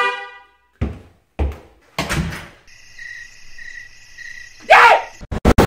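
A key fob button is pressed, and the car's latch answers with a click and a few separate thunks. Then comes about two seconds of steady, pulsing high chirping, followed by a loud sudden sound and a quick run of clicks near the end.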